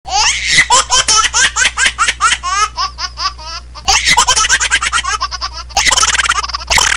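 A baby laughing in quick, repeated bursts, then the same laugh replayed with an audio effect from about four seconds in, and near the end sped up fourfold into rapid chatter.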